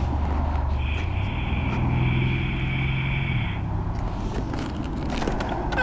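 Motorcycle engine running on the move, its pitch stepping up about a second in, holding, then dropping back a little after three and a half seconds, with a higher whine alongside while the revs are up.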